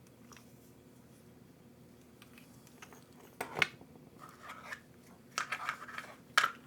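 Hands working on the parts of a 1/10 nitro RC truck during disassembly: a quiet stretch, then a run of sharp clicks and scrapes over the second half, loudest about halfway through and again just before the end.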